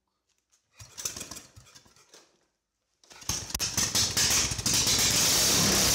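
Honda GX390 single-cylinder engine with an unmuffled homemade exhaust pipe being started: a first rough cranking burst that doesn't catch, then about three seconds in it fires, runs unevenly for a moment and settles into a loud, steady run.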